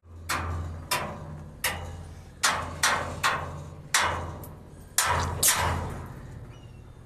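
A hammer striking a welded steel stair frame, about ten blows at uneven intervals, each ringing briefly before dying away.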